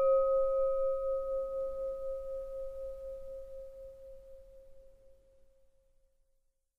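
The ringing tail of a single chime: one clear bell-like tone with fainter higher overtones, decaying steadily and dying away about five seconds in. It marks the end of the countdown timer.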